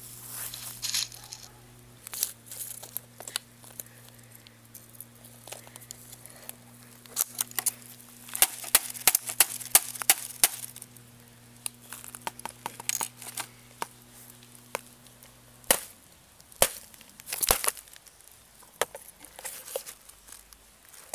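A laptop being broken apart by hand, with a run of sharp cracks, snaps and clinks of its plastic parts. They come thickest in the middle and are scattered knocks after that.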